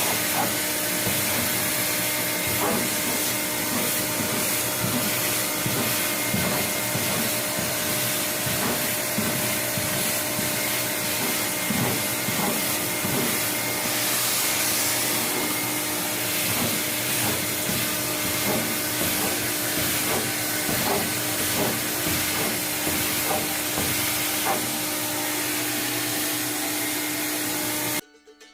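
Vacuum cleaner running steadily with a constant motor hum, its nozzle knocking and scraping irregularly. The vacuum stops abruptly near the end.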